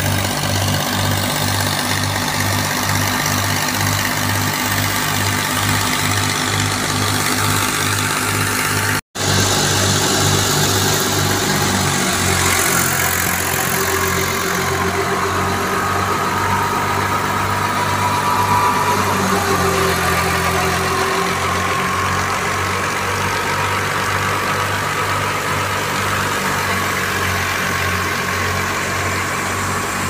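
Fiat 480 tractor's diesel engine running steadily under load, driving a wheat thresher through its PTO shaft, with the thresher's own running noise on top. The sound cuts out for an instant about nine seconds in.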